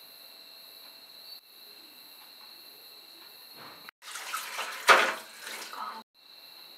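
A faint steady high-pitched hum, broken about four seconds in by a loud rushing noise, sharpest about a second later, that cuts off abruptly after about two seconds.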